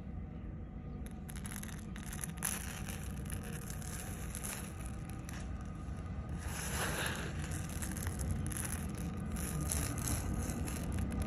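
Dry grains of sella basmati rice rustling and pattering as a hand scoops them up and lets them pour back onto the pile, in several spells, over a steady low rumble.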